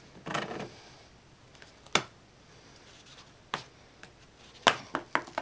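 Tools and sole material handled on a workbench: a brief scratchy rustle, then a few separate sharp clicks and taps, with several more in quick succession near the end.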